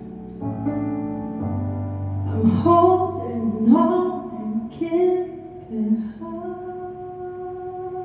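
A woman singing live over held chords on a Nord Electro 4 stage keyboard. The keyboard chords sound alone for about the first two seconds, then the voice comes in with a few short phrases and ends on a long held note.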